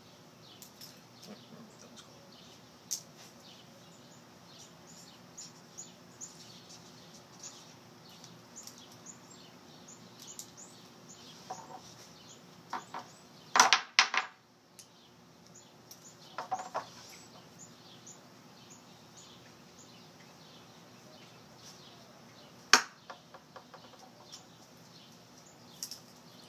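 Pens being driven point-first into a wooden board: a quick cluster of hard knocks about halfway through and one more sharp knock later, with a few lighter taps. Birds chirp in the background throughout.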